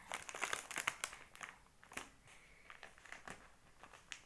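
Rustling and crinkling of something being handled: an irregular run of small crackles and clicks.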